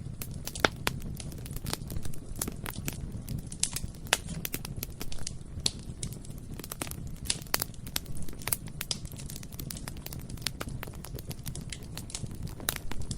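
Bonfire burning with a steady low roar and dense, irregular crackling and sharp pops of burning wood.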